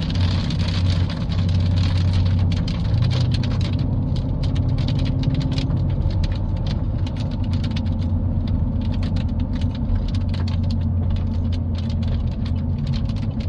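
Rain hitting a car's windshield and roof, heard inside the cabin as many small separate drop hits, over the steady low hum of the car's engine and road noise.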